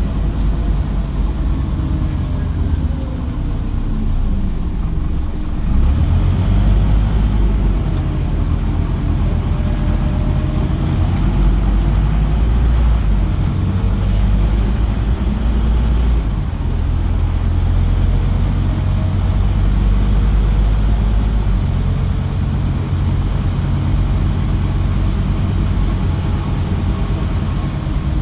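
Scania OmniCity city bus heard from inside its passenger cabin while driving: a steady low engine and road rumble that swells louder a few times, with a faint whine gliding up and down in pitch.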